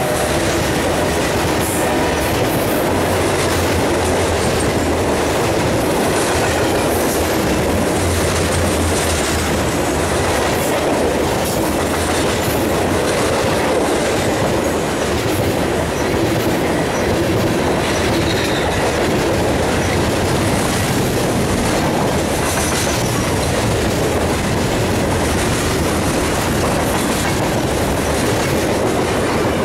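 Freight train's covered hoppers, tank cars and boxcar rolling past close by: a steady, loud rumble of steel wheels on rail, with clicks as the wheels cross rail joints. A couple of brief, faint, high wheel squeals come about halfway through.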